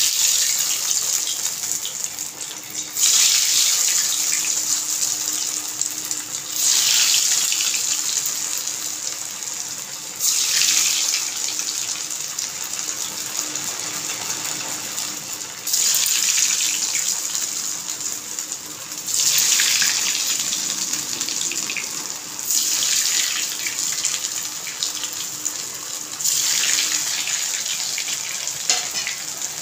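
Sabudana and raw-potato patty deep-frying in hot ghee: a loud, steady sizzle that surges sharply every three to four seconds and then eases back.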